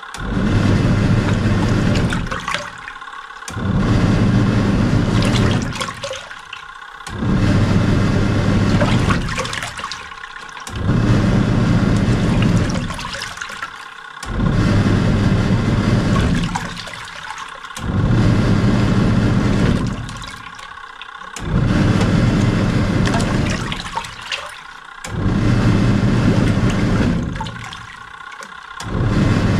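Samsung SW-655P twin tub's wash motor and pulsator churning water and clothes on the heavy wash cycle. It runs with a low hum for about two and a half seconds, stops briefly as the pulsator reverses, and repeats about every three and a half seconds.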